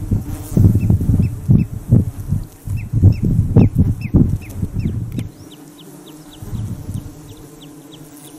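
Wind buffeting the microphone in loud gusts, dropping away about five seconds in. Throughout, a small bird repeats short, high, downward chirps, about two to three a second.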